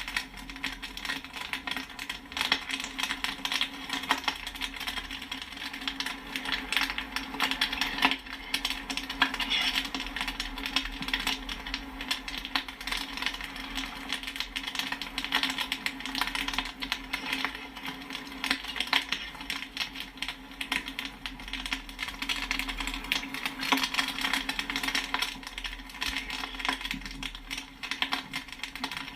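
Popcorn kernels popping in quick, dense, irregular succession, a steady crackle of sharp pops and pings, over a constant low hum.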